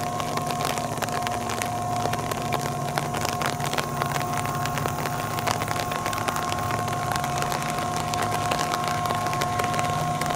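Diesel-electric locomotive approaching under load on an uphill grade, its engine running with a low throbbing hum and a steady high whine. Scattered ticks of rain patter over it.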